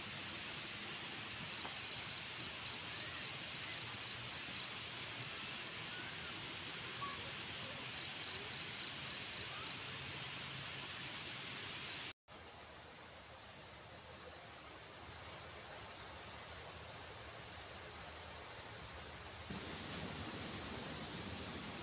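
Insects giving a steady, high-pitched drone, with a rapid run of short chirps at about four a second heard twice in the first half. The sound breaks off for an instant just past halfway.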